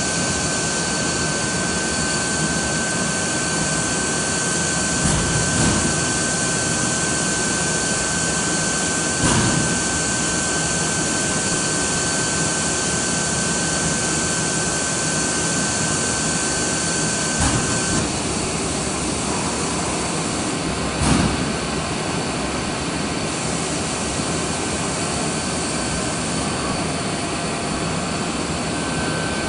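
Mitsubishi ML605GTWIV-H PCB laser drilling machine running: a steady, loud rushing machine noise with a constant high whine that drops out partway through, and a few dull knocks.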